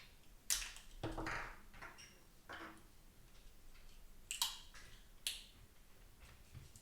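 Scattered sharp clicks and taps of small hard parts and tools being handled during a computer-mouse repair, about five in all, with a brief scraping rustle about a second in.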